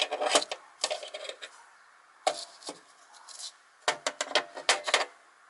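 Small brass valve parts handled on a workbench, clicking and tapping: irregular sharp little clicks in a few clusters, with short gaps between them.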